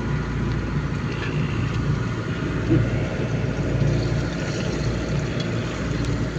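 A fishing boat's engine running steadily while the boat is under way, a continuous low drone.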